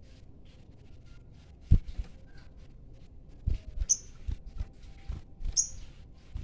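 A caged sogon songbird giving two short, high chirps about a second and a half apart, amid scattered knocks, taps and low thuds.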